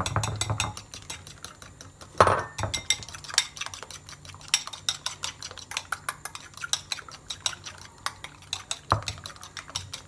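Metal spoon briskly stirring a wet egg mixture in a small ceramic bowl, clinking rapidly against its sides several times a second, with a couple of louder knocks.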